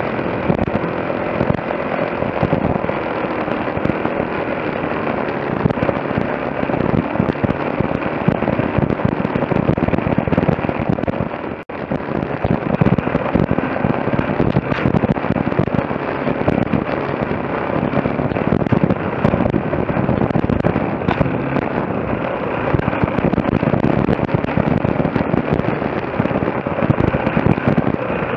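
Off-road motorcycle engine running under way, heard on board, as a dense, steady crackling noise. The sound drops out for an instant a little under twelve seconds in.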